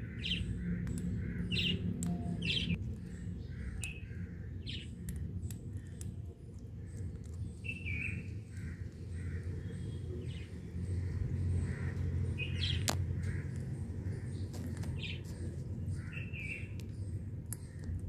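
Indian ringneck parakeets chirping: short, high chirps at irregular intervals throughout, over a steady low rumble.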